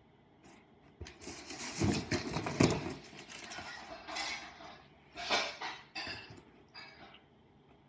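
Himalayan kittens scuffling and bumping around cardboard boxes and crumpled paper balls on a wooden floor: rustling and knocks begin about a second in, with the loudest thumps soon after, then a few shorter rustles.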